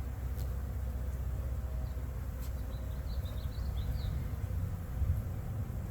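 Honeybees humming around an open hive, over a steady low rumble, with a few faint bird chirps about three to four seconds in.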